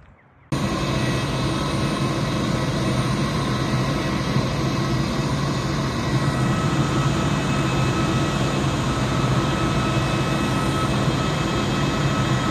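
Parked jet airliner's auxiliary power unit running: a loud, even hum and whine with several steady tones, starting abruptly about half a second in. With passengers already coming down the stairs, the main engines are shut down, so the steady run is the APU.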